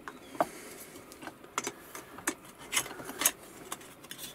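Sheet-metal tender side being slid and fitted into the steel angle of a bending jig: a string of irregular light metallic clicks, taps and scrapes as the sheet is pushed and settled into place.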